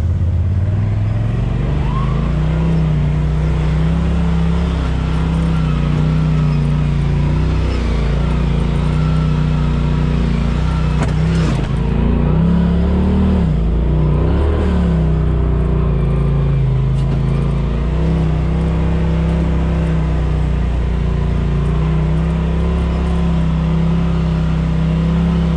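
Off-road vehicle's engine running steadily at low revs, its pitch wavering up and down briefly about halfway through.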